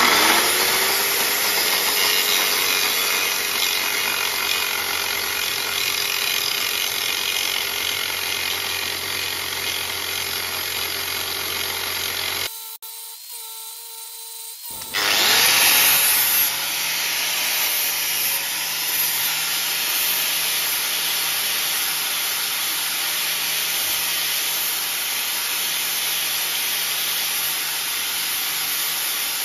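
DeWalt angle grinder spinning up and grinding back MIG weld on a steel forklift axle: a steady whine under the rasp of the disc on the metal. About 12 seconds in it stops briefly, then spins up again and grinds on.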